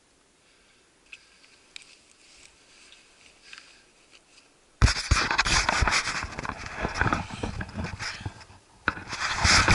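Loud rustling and scraping of a body-worn camera rubbing against a padded camouflage jacket as it is handled, starting suddenly about five seconds in after a few faint soft ticks.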